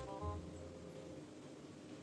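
Faint background music: a few soft held notes, fading out after about a second and leaving near quiet.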